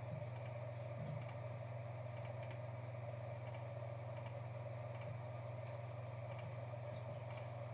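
Faint, scattered light clicks on a computer keyboard over a steady low electrical hum.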